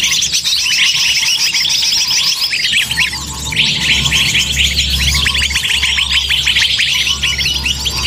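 Bird-lure recording of many small birds chirping and twittering rapidly over one another in an excited chorus, with a short lull about three seconds in. A steady low hum runs underneath.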